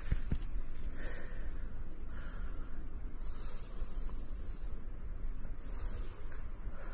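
Insects, crickets by their sound, chirring in a steady high-pitched chorus, over a low rumble.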